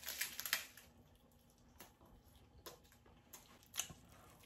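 Crisp seaweed wrapper of a triangle kimbap crackling as it is bitten in the first half second, followed by a few faint, scattered chewing clicks.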